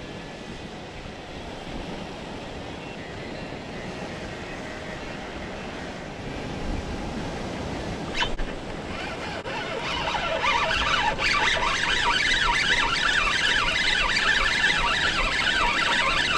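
Ocean surf washing against the rocks below, with wind on the microphone. A sharp click comes about halfway through, and soon after it a louder stretch of many high, wavering squeals sets in over the surf and goes on to the end.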